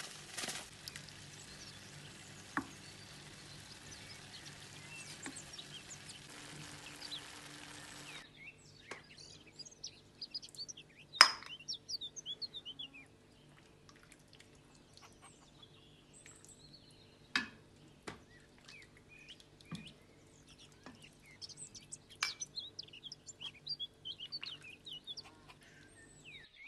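Birds chirping in quick, short calls, with a few sharp clicks or taps scattered among them. A steady hiss fills the first several seconds and stops abruptly.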